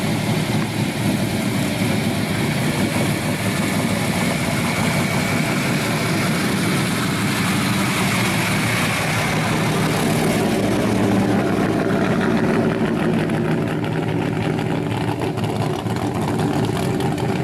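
Engine of a lowered, hot-rodded 1970s Ford pickup, its intake poking through the hood, running steadily at low speed as the truck creeps past.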